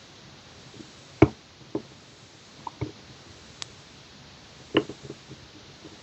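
Irregular metallic clicks and light knocks of a disc detainer pick working in a bicycle lock's core as it turns the discs. There are half a dozen separate clicks, the loudest about a second in and near the end.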